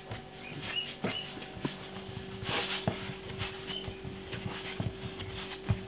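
Bread dough being kneaded by hand on a floured oak plywood board: soft, irregular thumps with a rustle about halfway through. A steady low hum runs underneath, and a few short high chirps sound now and then.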